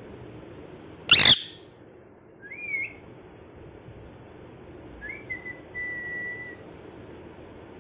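A ringneck parrot gives one loud, harsh scream about a second in. Two thin whistles follow, a short rising one and then one held for about a second.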